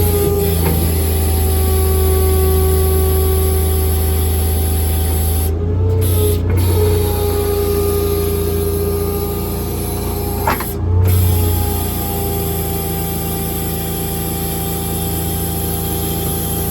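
Service truck's engine-driven hydraulic system running steadily with a constant hiss. The engine note dips and shifts briefly twice, about six and eleven seconds in, as hydraulic functions are worked.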